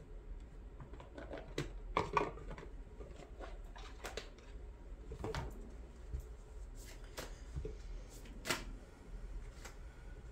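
An oracle card deck being taken from its cardboard box and handled: scattered soft rustles, taps and card flicks, with sharper clicks about two seconds in and again near the end.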